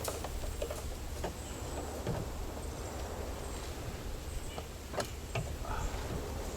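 A few scattered light clicks and knocks from seatbelt parts being handled and fitted into place, over a steady low hum. The clearest click comes about five seconds in.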